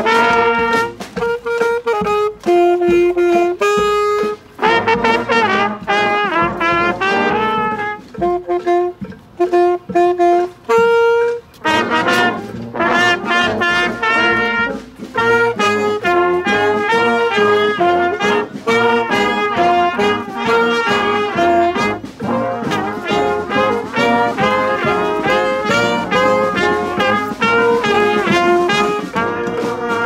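Brass street band of trumpets, trombones and saxophone playing a tune together. Around eight seconds in it drops to short repeated stabs with gaps between them, and the full band comes back in near the twelve-second mark.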